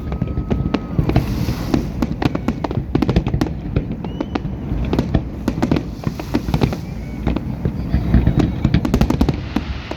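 New Year fireworks display going off in a steady barrage: many rapid sharp cracks and bangs over a continuous deep rumble of bursting shells, with a few faint rising whistles.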